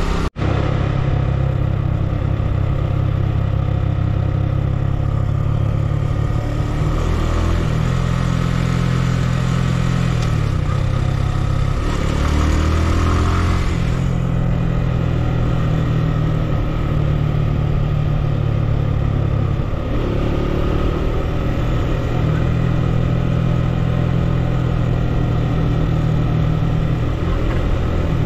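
A vehicle engine running steadily on the road. The note falls and then climbs again about ten to thirteen seconds in.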